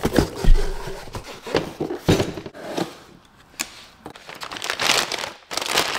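Cardboard boxes being opened and handled: flaps scraping and rubbing, a few sharp knocks of cardboard, and crinkling of packing.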